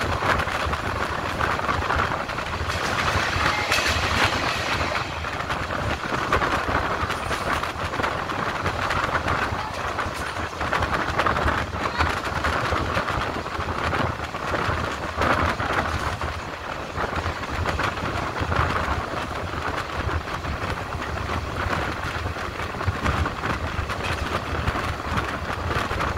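Passenger train running along the line, heard from on board: a steady rolling rumble of wheels on rail with scattered clicks from the track.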